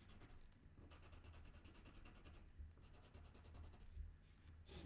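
Faint scratching of a felt-tip marker being stroked back and forth as blue is coloured onto a wooden fish.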